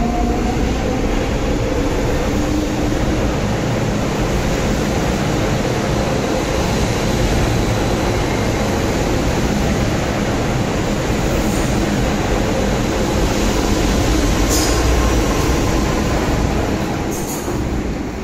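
MTR M-train electric multiple unit pulling away along the track: a loud, steady rumble of wheels on rail, with the traction motor whine rising in pitch in the first couple of seconds. The noise fades after about seventeen seconds, with a few short, sharp high squeaks near the end as a second M-train approaches.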